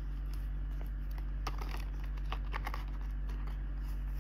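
Hands handling a small quilted leather flap card holder: a quick run of light clicks and taps from the gold turn-lock clasp and fingernails as the flap is opened, over a steady low hum.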